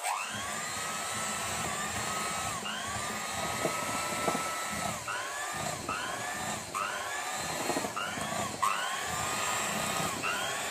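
Electric hand mixer running with its beaters in thick muffin batter, mixing in flour. Its motor whine falls in pitch and picks up again over and over, more often in the second half.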